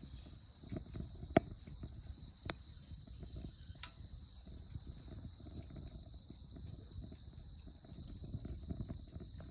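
Wood fire crackling in a Solo Stove Campfire fire pit, with a few sharp pops, the loudest about a second and a half in. A steady high insect trill runs under it.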